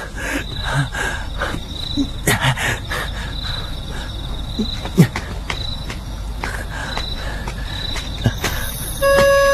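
Crickets chirring steadily in a night ambience, broken by a few sharp thumps, the loudest about five seconds in. Electronic organ music comes in near the end.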